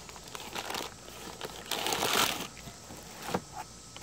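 Packing paper and plastic wrap crinkling as they are handled and pulled away by hand, in uneven rustling bursts, the loudest about two seconds in.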